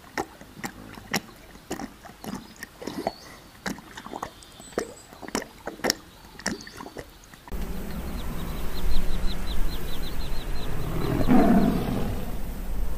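A Siberian tiger lapping water: a run of sharp wet clicks, irregular, a few per second. About halfway through it changes abruptly to a tiger growling, a low rumbling growl that swells loudest near the end.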